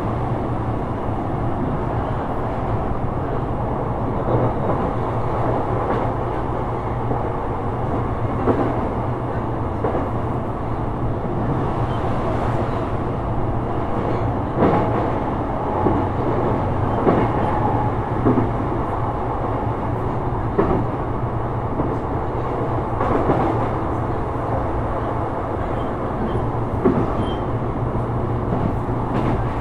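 Sotetsu 12000 series electric train running at steady speed, heard from inside the car: a steady rumble of wheels on rail with scattered clacks from rail joints.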